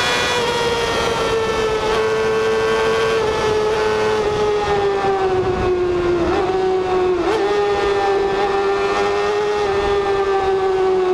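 Honda CBR600RR's inline-four engine at high revs, a high-pitched steady note that slowly falls as the bike slows from very high speed. About seven seconds in the pitch dips and jumps back up, as at a downshift, and wind noise runs under it.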